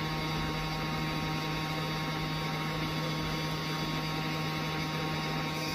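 Hot-air rework station blower running steadily with a constant hum, heating the solder so a replacement IC chip settles onto the ECU circuit board.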